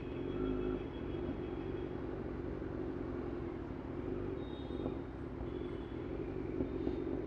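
Kawasaki Z900's inline-four engine idling steadily at a standstill through a loud aftermarket exhaust.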